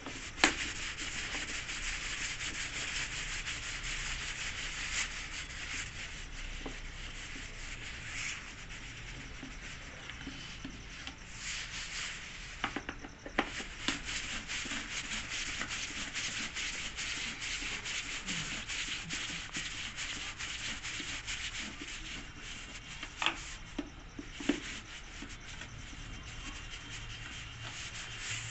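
Continuous scraping, rubbing sound made of many fine strokes, with a sharp knock just after the start, another about halfway through, and two more near the end.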